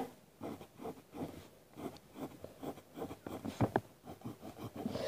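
Graphite pencil scratching lightly on paper in many short strokes while tracing an outline.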